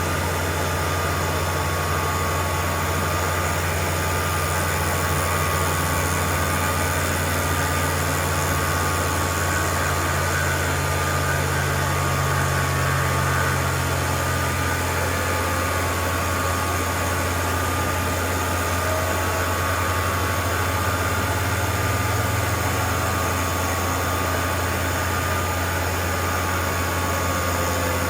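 CNC machine running while it cuts a wooden smoke-detector mount: a steady machine hum, with a lower tone dropping out about halfway and faint tones sliding in pitch after it.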